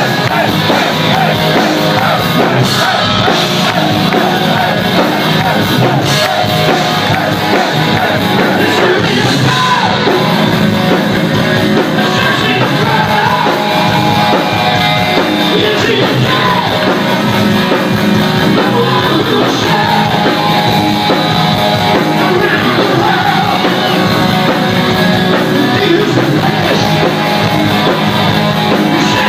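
Loud rock music with singing and shouted vocals, playing steadily.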